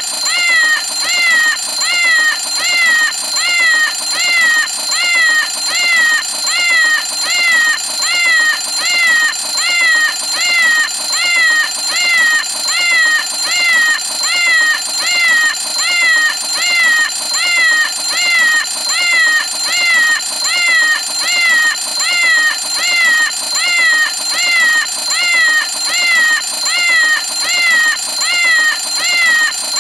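Cartoon cat alarm clock going off: a meowing alarm call repeated at an even, fast rhythm over a steady high tone.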